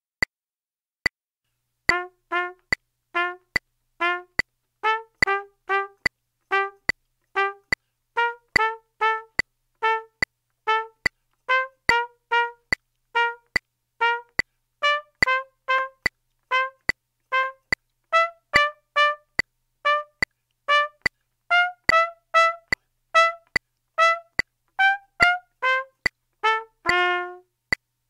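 Trumpet playing short, detached, accented notes in a syncopated rhythm over a steady metronome click, about one click every 0.8 seconds. The clicks count in alone for about two seconds before the trumpet enters.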